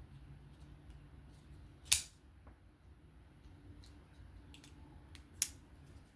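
Two sharp clicks about three and a half seconds apart, with a few faint ticks between: a folding knife and the small tools for its screws being handled during reassembly.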